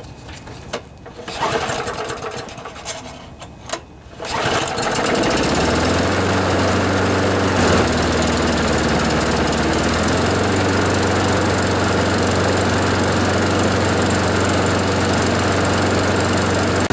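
Briggs & Stratton 5 hp single-cylinder lawnmower engine starting about four seconds in, then running steadily at a constant speed. It starts readily with a newly replaced primer bulb that now primes properly.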